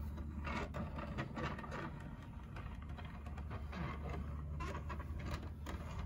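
Wooden board being turned by hand on a wooden tabletop, giving irregular light scrapes and knocks of wood on wood over a steady low hum.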